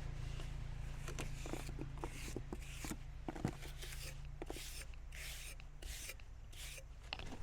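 A hand tool scraping and pressing wet chinking mix into the gaps between cabin logs: a run of short scrapes, several a second, with a few light taps over a low steady hum.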